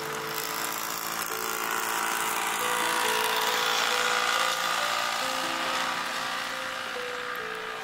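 Background music: a slow melody of held notes stepping from one pitch to the next, over a steady hiss.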